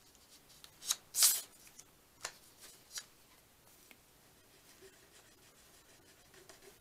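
Paper being handled on a craft cutting mat: a short rustle of a paper sheet sliding and rubbing about a second in, then a couple of light clicks as a plastic glue bottle is picked up, and mostly quiet after.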